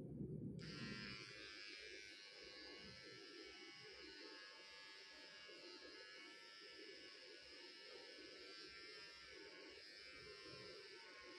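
Electric hair clipper switched on about half a second in after a brief handling bump, then buzzing steadily as it shaves short hair at the nape of the neck.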